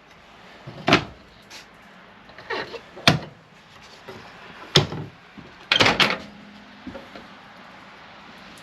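Cabinet doors in a travel trailer being opened and shut: a handful of sharp knocks and clacks a second or two apart, the last two close together.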